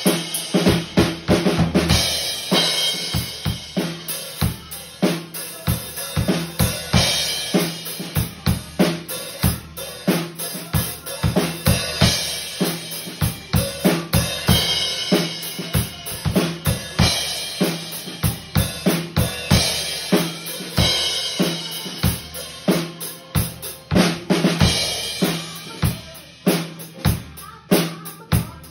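Tama acoustic drum kit played to a steady beat: bass drum and snare hits, with cymbals washing in and out every few seconds.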